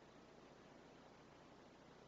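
Near silence: faint steady room tone with hiss and a low hum.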